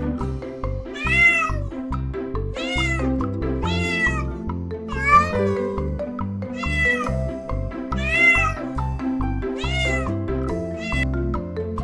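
Domestic cat meowing about seven times in a row, each meow a short call that rises and falls in pitch, over background music.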